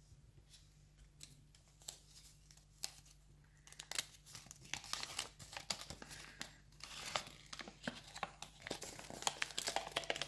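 A sheet of white paper handled by hand, unfolded and refolded: crackling and rustling as creases open and are pressed. Sparse at first, busier from about four seconds in.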